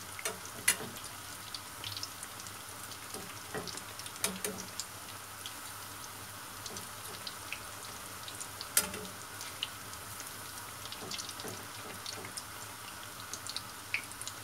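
Vegetable and egg fritters (ötçe) frying in shallow oil in a pan, a steady sizzle. A few sharp clicks of a utensil against the pan stand out as the fritters are turned over.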